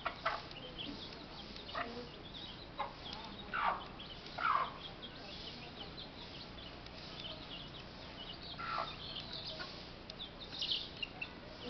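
Chickens clucking: short separate calls every second or so, loudest about three and a half and four and a half seconds in, with faint high chirps between them.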